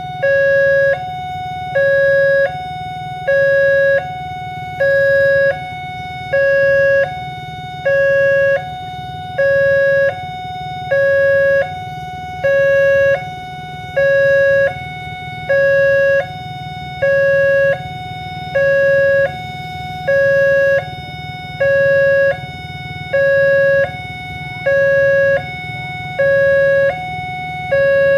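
Railway level-crossing warning siren sounding a steady two-tone hi-lo alternation, each tone held just under a second, with the lower tone louder. It repeats evenly over a steady low hum.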